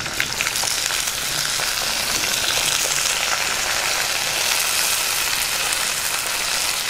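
Hot oil in a clay pot sizzling steadily as handfuls of chopped spring onions are dropped in to fry with green chillies and tempering spices. There are a few crackling pops at the start, and the sizzle grows a little about a second in.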